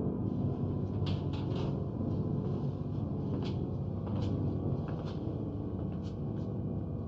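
Strange noises from a 1950s sci-fi film soundtrack: a low steady hum with scattered, irregular knocks and taps, roughly one every second or so.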